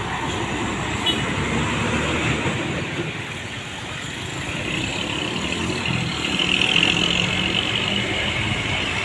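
Road traffic passing close by, with the engine and tyre noise of a heavy vehicle swelling to its loudest about six to seven seconds in.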